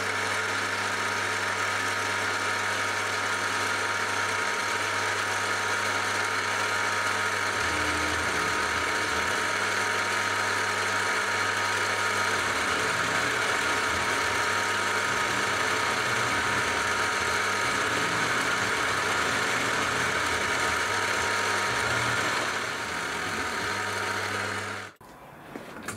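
Milling machine running a carbide end mill through a metal block, milling it down to a scribed line: a steady machine and cutting noise whose low tone changes about a third of the way in, stopping shortly before the end.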